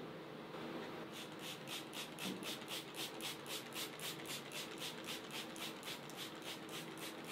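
Plastic trigger spray bottle squirting distilled water in quick, even pumps, about four a second, starting about a second in. The water is misting wooden boards to soak them before they are clamped straight.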